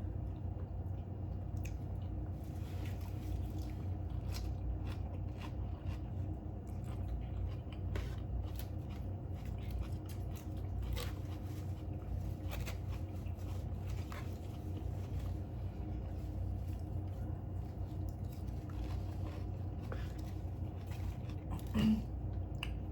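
Close-miked eating: chewing and biting food, with scattered soft crunches and mouth clicks over a steady low hum.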